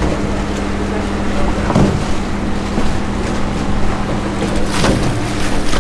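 A sailing cargo ship's engine drones steadily under way, heard from the deck over the wash of the sea. There are two brief swooshes, about two and five seconds in.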